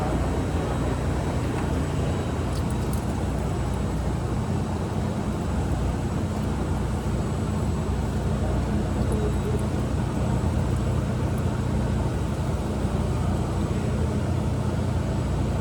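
Steady low mechanical hum with a noisy hiss over it, even in level, with no distinct events.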